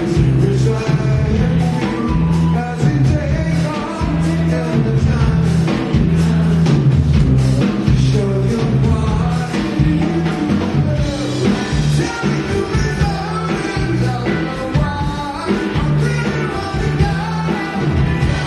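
Live rock band playing a 1960s song: a repeating electric bass line and drum kit under a male lead vocal singing.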